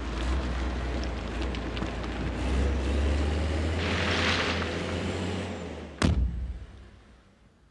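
Heavy diesel engine of a wheel loader working, a steady deep rumble with a short hiss about four seconds in. About six seconds in a single sharp bang is the loudest sound, and the rumble then fades away.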